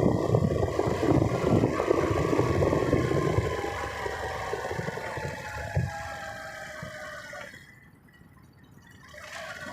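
Vehicle slowing down: road and wind rumble fades after a few seconds, under a faint whine that falls slowly in pitch. It goes nearly quiet for about a second near the end, then the engine sound comes back up.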